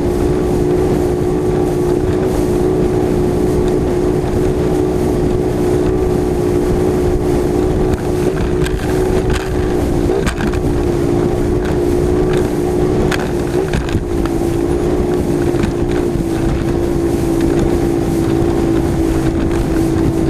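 Mercury Racing 250 outboard on a Bullet 21XD bass boat, running steadily at high speed with wind buffeting the microphone. The engine note wavers briefly about halfway through and again a few seconds later, with occasional sharp knocks as the hull meets the chop.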